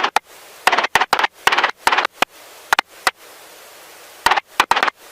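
Helicopter cockpit noise picked up by the headset intercom microphone: a dense, rapidly pulsing roar that cuts in and out in short bursts several times, with a steady hiss in between.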